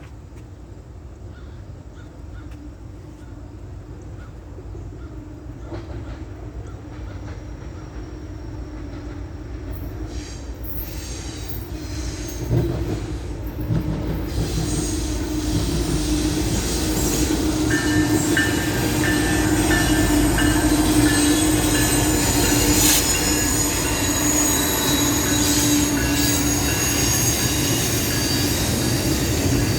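A train approaching, growing louder through the first half, with a steady low hum and high-pitched wheel squeal from about halfway on.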